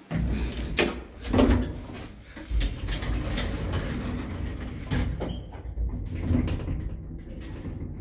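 Passenger lift from 1998 setting off: a low rumble starts suddenly and runs on steadily as the car travels. Several knocks and clunks from the doors and mechanism come over the top of it.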